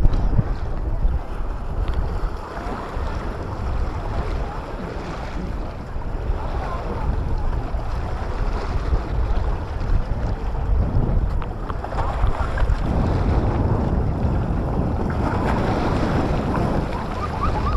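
Wind buffeting the microphone in gusts, over the steady wash of sea waves.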